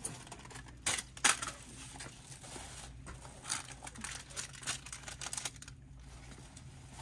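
Plastic wrap on a sleeve of foam cups crinkling as it is taken off the shelf and handled, in a series of short rustles, the loudest about a second in.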